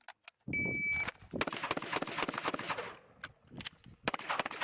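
Small-arms gunfire in rapid strings: a brief high beep, then a fast run of many shots for about two and a half seconds, a few single shots, and another quick run of shots near the end.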